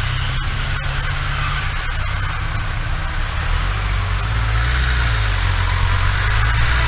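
Motorcycle engine running steadily under a constant rush of wind and road noise; about halfway through, the engine note drops lower.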